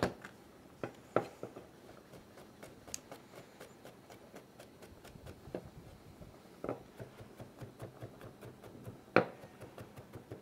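Chef's knife chopping and mincing garlic cloves on a plastic cutting board: scattered sharp knife taps, then from about seven seconds in a fast run of light taps, several a second.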